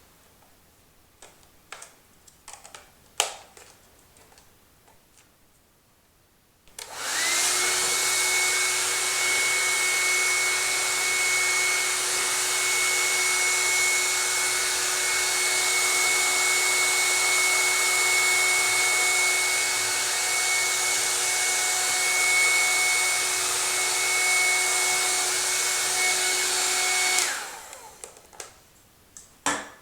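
Panasonic EH-NA65-K nanoe hair dryer switched on about seven seconds in. It runs steadily as a rush of air with a high whine, then is switched off shortly before the end and winds down. A few light clicks come before it starts and after it stops.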